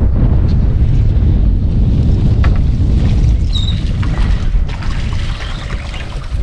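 Steady low rumble of wind buffeting the microphone over open water, with a short, high gull call about three and a half seconds in.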